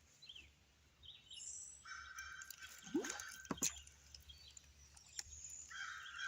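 A small plop and splash on the water about three seconds in, typical of a bass striking at a topwater lure. A steady buzzing comes and goes around it, with a few faint bird chirps early on.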